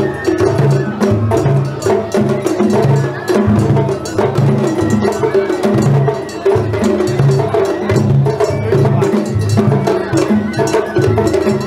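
Festival hayashi music from a dashi float: taiko drums beating a fast repeating rhythm, with sharp metallic clinks of a small struck gong over it.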